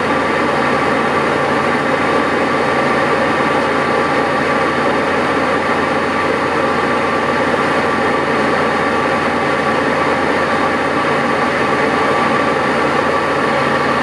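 Electric air-conditioning blower running steadily: a constant rush of air from the dashboard vents with a steady whine.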